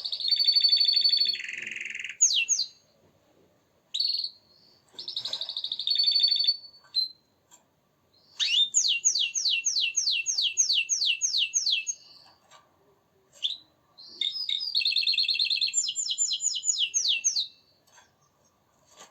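Domestic canary singing in phrases: rolling trills and runs of quick repeated down-sweeping notes, about three to four a second, with short pauses between phrases.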